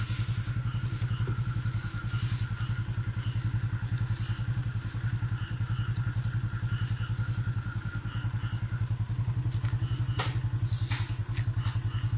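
Motorcycle engine idling with a steady, even beat. A few sharp clicks and knocks come near the end.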